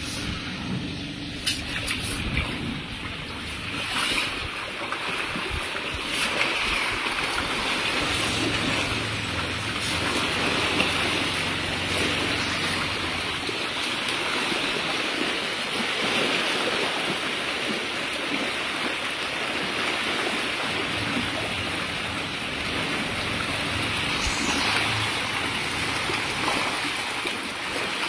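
Large shoal of farmed pond fish thrashing and splashing at the surface in a feeding frenzy as feed is scattered into the water: a continuous churning splash that builds over the first few seconds, then holds steady.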